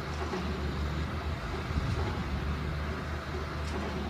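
GR215 motor grader's diesel engine running steadily as the machine grades rocky ground: a continuous low drone with no change in pitch.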